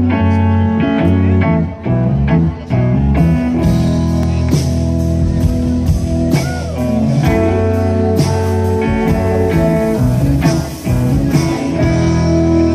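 Live rock band playing without vocals, electric guitars over a deep sustained bass; a regular beat of sharp hits comes in about three and a half seconds in.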